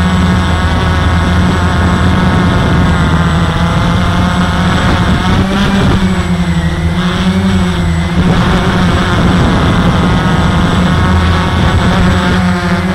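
Walkera QR X350 quadcopter's brushless motors and propellers buzzing in flight, heard close up from the camera mounted on the quad. The pitch wavers slightly with the throttle and dips a little about halfway through.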